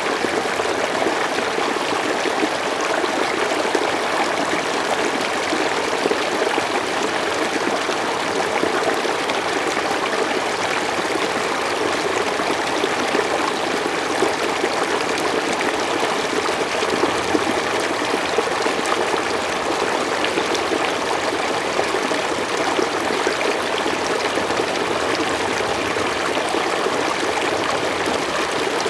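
Mountain stream flowing steadily over rocks, a continuous rushing and babbling of water with small splashes throughout.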